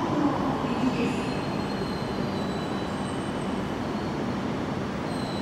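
E6-series Komachi shinkansen moving slowly along the platform track as it closes in to couple, giving a steady running noise with a faint high whine.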